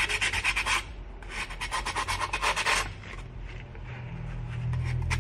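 Fine sandpaper rubbed rapidly back and forth on the chipped rim of a glass tumbler, smoothing the chip. It comes in two bursts of quick strokes that stop a little past halfway, after which only a faint low hum remains.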